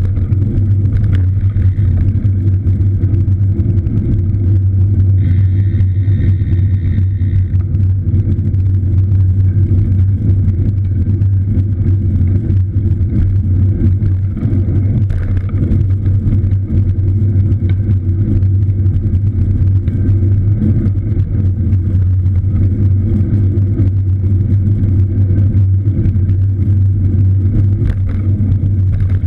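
Steady low rumble of wind and motion noise on a moving camera's microphone.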